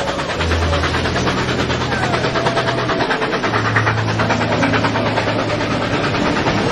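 Trains running past: a steady low engine drone under a fast, even clatter.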